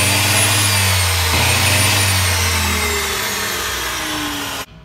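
Homemade table saw's electric drive motor running with the blade spinning free: a steady hum under a thin high whine. The sound stops abruptly near the end.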